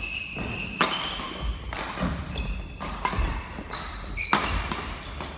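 Badminton doubles rally on a wooden court: several sharp racket cracks on the shuttlecock, the loudest about a second in and again after four seconds, with footfalls thudding and short high squeaks of court shoes on the floor.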